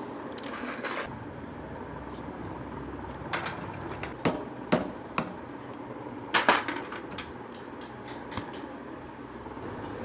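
Metal tools clinking and knocking against the magneto rotor and engine case of a Honda CG125 as the magneto is taken apart: a handful of sharp metallic strikes, the loudest between about four and seven seconds in.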